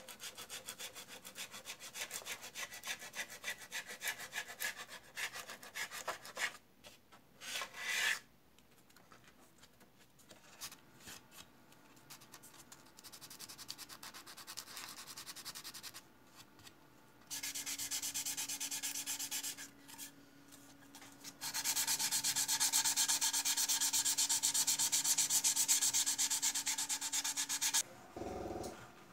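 Sanding sponge rubbed in fast back-and-forth strokes over the plastic parts of a model aircraft, in several stretches with short pauses between them. The later stretches are louder and denser.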